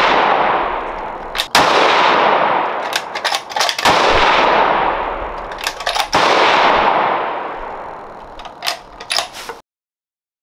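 Bergara B14 bolt-action rifle in 6.5 Creedmoor fired three times, about two and a half seconds apart, each shot followed by a long rolling echo that fades over a couple of seconds. Between and after the shots come quick metallic clicks of the bolt being cycled. The sound cuts off abruptly near the end.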